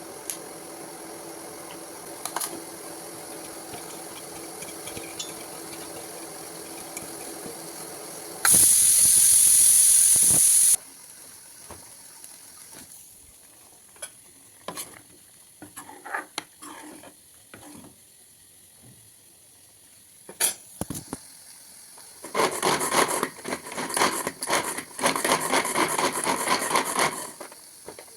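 Kitchen cooking sounds: a steady hum, then a loud hiss lasting about two seconds, then scattered clicks and knocks of utensils. Near the end comes about five seconds of sizzling with stirring in a pan.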